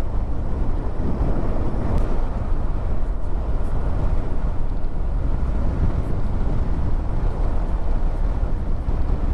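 Steady rumble of a vehicle on the move, with road noise and wind on the microphone, and no clear engine tone standing out.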